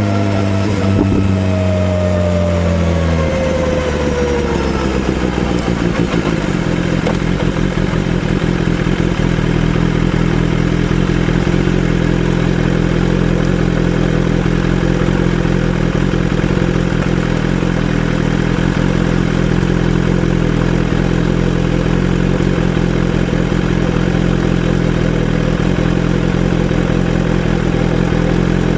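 BMW S1000RR inline-four motorcycle engine running: the revs fall over the first few seconds with a dropping whine, then it settles into a steady idle.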